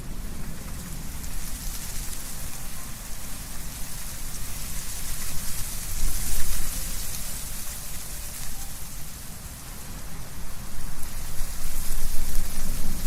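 Wind blowing through trees with leaves rustling, a steady hiss over a low rumble that swells in gusts about six seconds in and again near the end.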